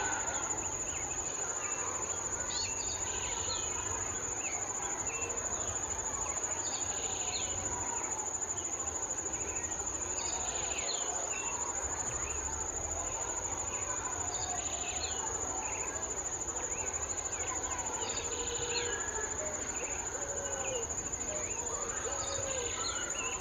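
A steady high insect trill runs throughout, with birds calling over it: short, sharp high notes every three to four seconds and lower warbling phrases.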